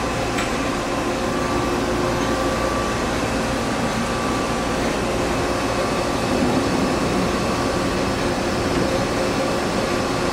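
Cincinnati-Milacron 18C slant-bed CNC turning center running, giving a steady mechanical hum with an even hiss and a few faint steady tones.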